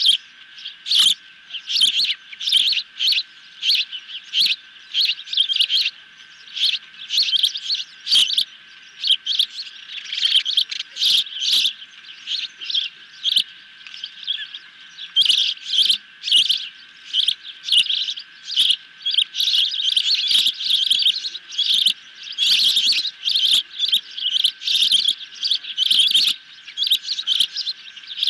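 Ospreys on the nest giving loud, rapid, repeated high chirping calls, about two a second, coming faster and more densely in the second half.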